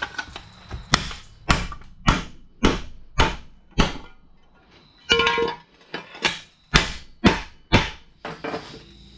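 Steady hammer blows on a steel frame horn, about two strikes a second, to take the twist out of the old metal. A little past halfway, one blow leaves a brief metallic ring.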